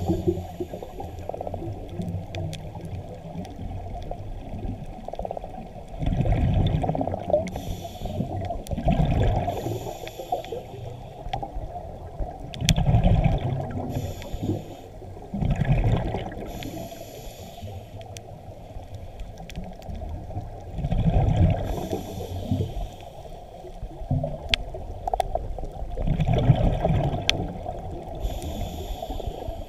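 Scuba diver breathing underwater through a regulator, with a gurgling burst of exhaled bubbles every few seconds.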